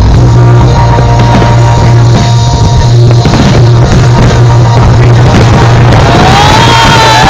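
Loud music with drums over a steady deep bass note. Near the end a high tone rises and holds.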